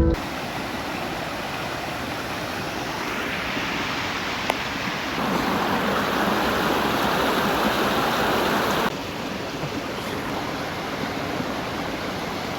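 Steady rush of flowing water from a creek or waterfall, louder from about five to nine seconds in, then dropping back suddenly.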